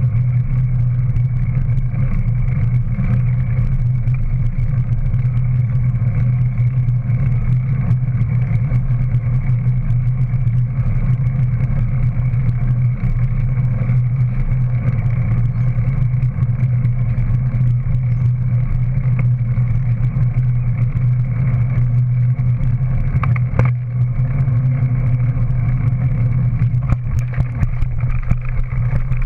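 Steady low hum and rumble of a bike rolling along a road, heard from a camera mounted on its back end. A few knocks near the end as it bumps off the road onto grass.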